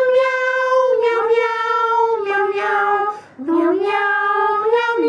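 A high voice singing slow, long-held notes of a theme song, the pitch stepping down gently, with a short break about three seconds in.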